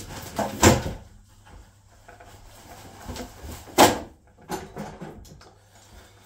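A few sharp knocks and clunks of handling, the loudest about a second in and again near four seconds in, with a smaller clatter just after.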